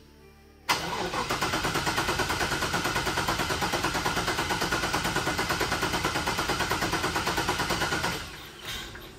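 GM LT1 V8 being cranked over by its starter for about seven seconds, with about eight even pulses a second and never catching. This no-start is typical of a fault in the OptiSpark distributor, which the owner suspects.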